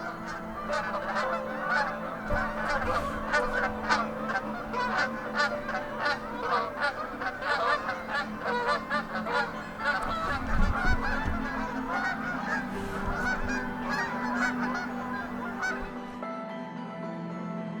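A flock of Canada geese honking, many calls overlapping in a dense clamour that dies away about two seconds before the end.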